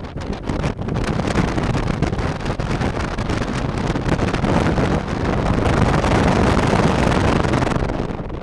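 Very strong wind blowing hard across the microphone: a dense, gusty rumble of wind noise that swells to its strongest past the middle and eases slightly near the end.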